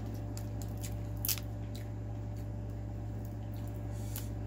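Crab shell cracking and snapping as a sauce-coated crab cluster is broken apart by hand, with scattered sharp cracks and wet squishing; the loudest crack comes about a second in.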